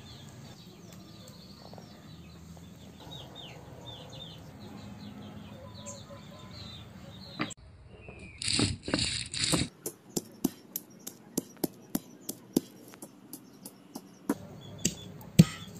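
Faint bird chirps over a low background hum, then a brief scraping grind of stone on stone in a stone mortar. This gives way to a steady run of sharp knocks, a little over two a second, as a stone pestle pounds garlic cloves on a stone.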